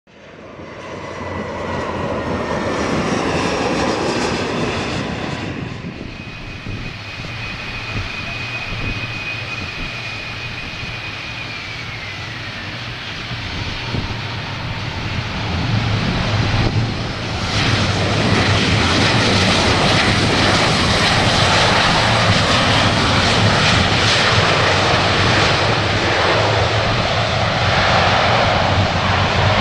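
Boeing 737 jet engines on landing and rollout: first a whine falling in pitch, then a steady high whine that slides down a little before halfway, then a louder steady jet roar from a little past halfway that holds to the end.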